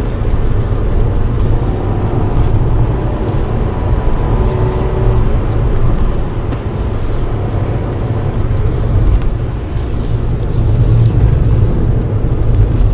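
Cabin noise of a 2007 Honda Accord V6 3.0L driving on a wet road: a steady low engine and road rumble with tyre hiss.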